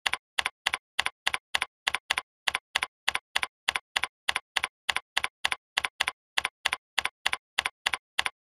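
Keyboard typing: evenly spaced key clicks, about three and a half a second, with dead silence between them, stopping shortly before the end.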